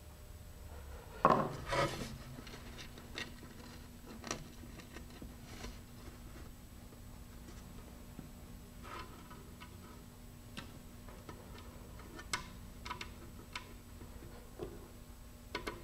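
Hands handling a fiberglass rocket body tube and fitting a rail button onto it: scattered small clicks and taps, with one louder knock about a second in.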